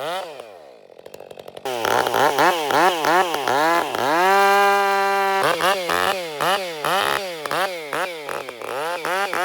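Stihl MS 462 two-stroke chainsaw on its first run, revved hard: the engine note drops back to a low idle, then rises and falls in quick repeated throttle blips, is held at full throttle for about a second and a half midway, and blips again before climbing to a steady high rev at the end.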